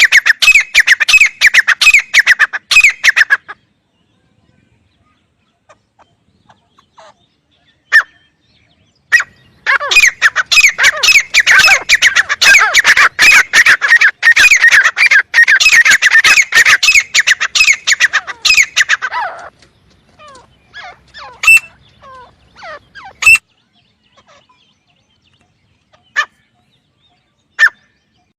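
Francolin (teetar) calling: loud, shrill notes repeated rapidly in long runs, a short run at the start and a long one through the middle, then a few scattered single calls.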